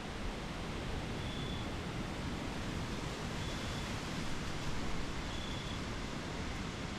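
Steady wind and rustling, with a faint short high tone repeating about every two seconds.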